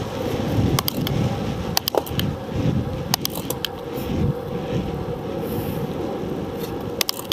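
Wind buffeting the microphone of a small camera zip-tied to road-bicycle handlebars while riding at speed, a dense, fluctuating rush. Short sharp clicks and rattles break in a few times, clustered about a second, two seconds, three seconds and seven seconds in.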